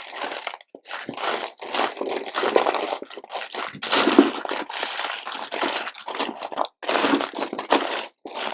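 Hands rummaging through loose LEGO pieces, giving rapid, irregular crinkly rustling and clattering in short bursts, loudest about four seconds in.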